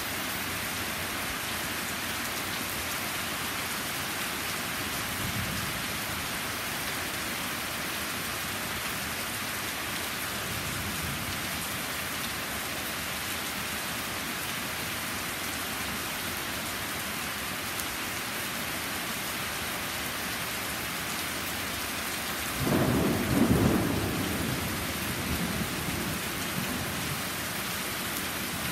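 Steady rain falling on a flagstone patio and the trees around it during a thunderstorm. Thunder rumbles faintly a couple of times, then a louder rumble breaks out about twenty-two seconds in and fades over a few seconds.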